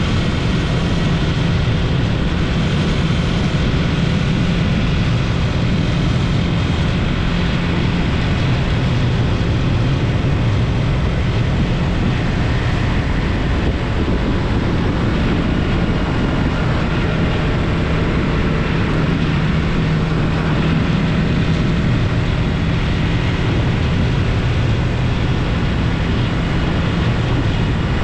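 Yamaha MT-03 motorcycle engine running at a steady pace under way, with a constant low engine note under a steady rushing noise.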